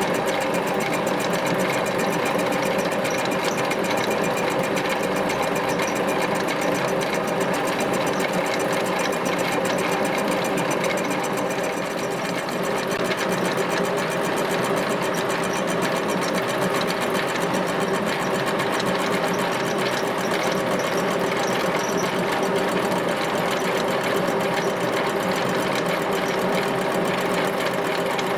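A machine running steadily with a fast, even clatter.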